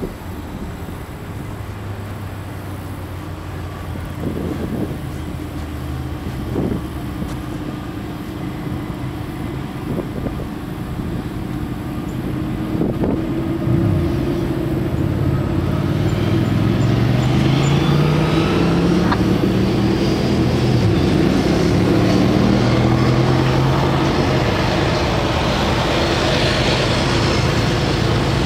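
Diesel locomotive engines of an approaching CSX train: a low, steady drone that grows louder and rises in pitch from about halfway through as the engines speed up.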